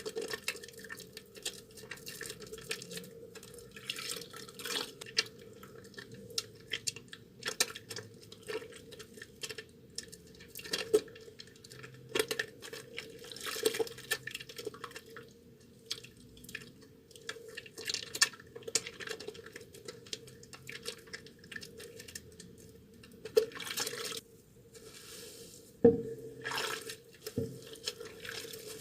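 Soaked, mushy bar soap being worked and lathered with wet hands: irregular wet squishes, sticky clicks and drips, with a few sharper taps along the way.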